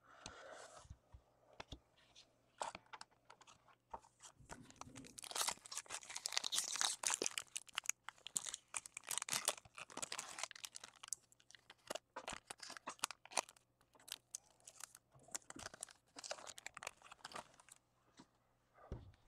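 Football trading cards and their clear plastic sleeves being handled: faint crinkling and crackling of plastic with scattered clicks of card edges, busiest in the middle and thinning out toward the end.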